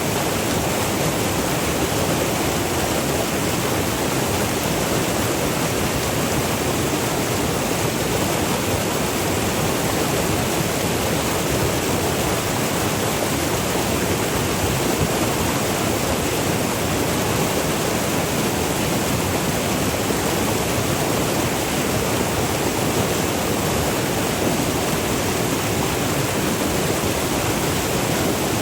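The Virgin River rushing and falling over small waterfalls: a steady, even rush of water with no breaks.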